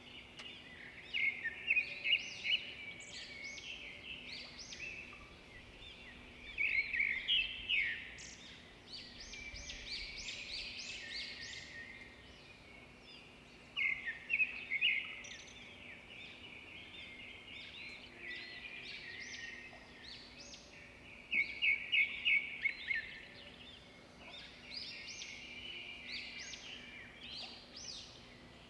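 Small songbirds chirping and twittering in repeated rapid bursts, with a faint steady low hum underneath.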